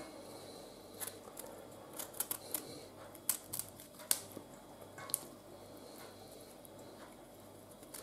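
Raw cauliflower florets being broken apart by hand and trimmed with a knife: a scattered series of crisp snaps and crackles, mostly in the first five seconds, then quieter.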